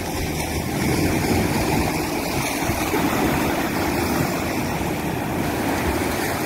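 Small waves washing up and breaking on a sandy beach: a steady rush of surf with a low rumble underneath.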